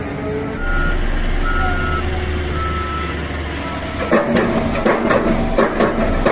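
Diesel engine of a hydraulic rotary drilling rig running steadily with a low rumble, while a warning alarm gives a few short high beeps. About four seconds in, rhythmic music with a beat comes in over it.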